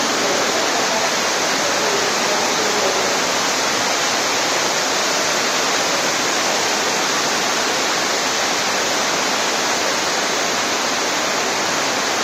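Muddy floodwater cascading down a flight of stairs: a loud, steady rush of water.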